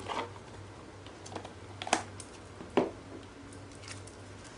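A handful of separate light taps and clicks as a deck of oracle cards is handled on a table, the sharpest a little under two seconds in and again near three seconds.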